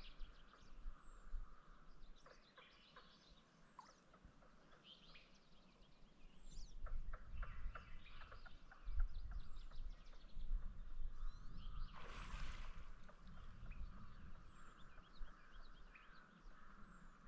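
Birds singing and calling, with short high chirps, sweeping notes and rapid trills throughout. About twelve seconds in there is a brief rushing noise.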